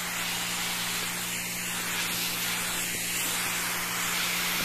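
Steady hiss of a fine herbicide mist from the adjustable nozzle of a homemade battery-powered electric sprayer, with both of its pump motors running. A steady low hum lies under the spray.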